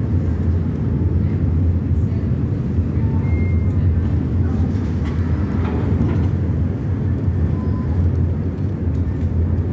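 Docked car ferry's engines running with a steady low rumble.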